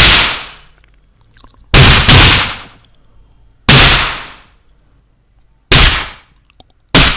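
A man imitating small revolver shots with his mouth into a microphone: six sharp single shots, each with a quick fading tail, about two seconds apart, two of them in quick succession about two seconds in.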